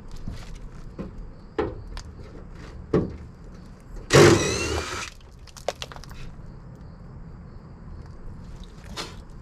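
A DeWalt cordless power tool runs in one burst of about a second, about four seconds in, backing out a fastener on a truck's inner fender. Short clicks and knocks from handling the tool and metal come before and after it.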